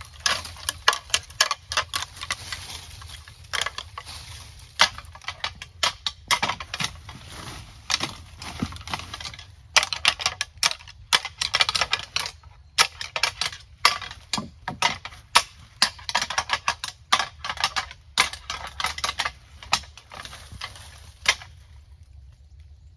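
Antler rattling: a pair of antlers clashed and ground together in irregular bursts of sharp clacking, imitating two whitetail bucks fighting to call in a buck. It stops a little before the end.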